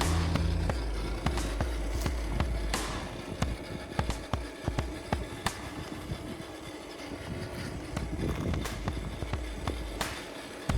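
Redcat Scout II Gen8 RC crawler truck driving over rough ground, its tyres and chassis knocking and clattering on rocks in a run of irregular clicks.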